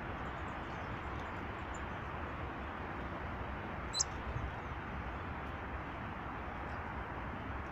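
Steady outdoor background hiss and rumble, with a single short, high chirp from a small bird about four seconds in.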